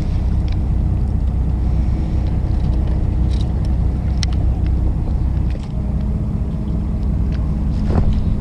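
A fishing boat's engine running steadily with a low drone. A little over halfway through it dips briefly, then settles into a slightly changed steady note. A few faint light clicks can be heard.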